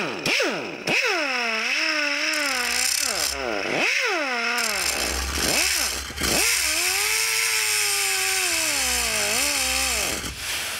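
Corded angle grinder with a cut-off disc cutting a piece off an old hood strut held in a vise. The motor spins up at the start, its pitch dips and recovers as the disc bites, then holds steady before winding down near the end.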